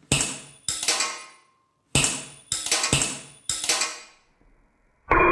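Suspense sound effects: five identical sharp percussive hits with ringing tails, falling in pairs. About five seconds in, a sustained ringing synth tone takes over.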